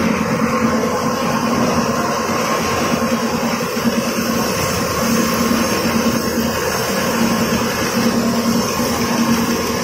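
A rotating stainless-steel drum machine running, with a steady mechanical noise and a motor hum that breaks on and off in the second half.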